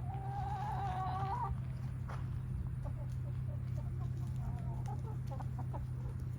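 A chicken calls with one drawn-out, wavering note lasting about a second and a half, then gives a few short clucks a few seconds later, over a steady low hum.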